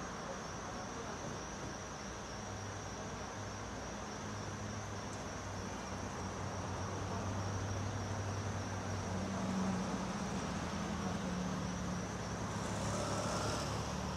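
Car driving on a city road: steady engine hum and tyre noise that swells a little partway through, with a steady high-pitched whine running over it.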